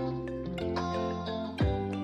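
Background music: sustained keyboard-like notes over bass, with a couple of kick-drum beats near the end.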